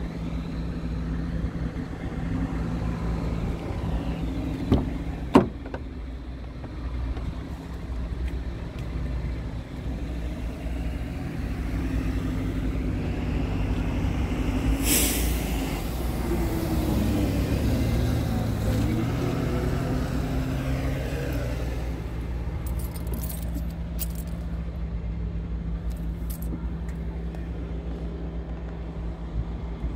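Scania R tractor unit's diesel engine idling steadily. A sharp click comes about five seconds in, and a short burst of hissing air about halfway through.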